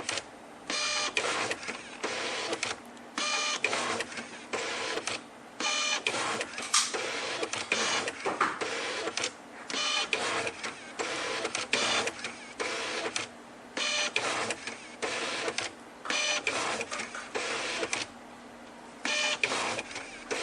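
Japanese word processor's built-in printer printing: the print head runs in bursts of about one to two seconds, line after line, with short pauses between them.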